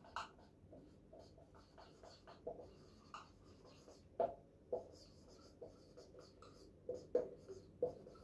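Felt-tip marker writing on a whiteboard: faint, irregular short squeaks and taps of the tip as words are written, with a few louder strokes about four and seven seconds in.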